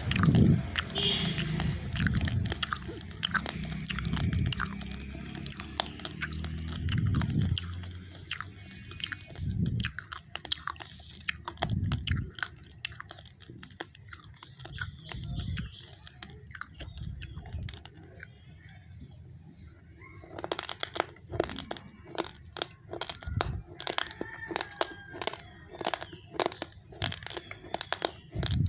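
Raw rice grains being chewed close to the microphone: many sharp crunches with dull thumps in the first half, then a denser run of crisp crunches in the last third.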